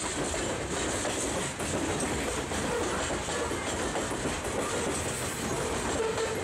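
Freight train's covered hopper cars rolling past close by: steady noise of steel wheels on the rails with a clatter over the rail joints.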